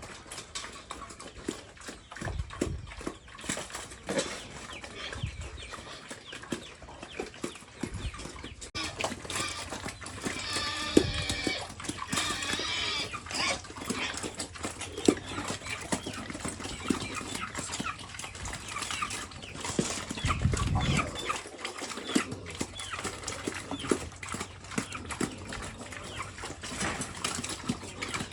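Pigs eating, with a constant run of wet chomping and smacking clicks and a few louder low sounds mixed in.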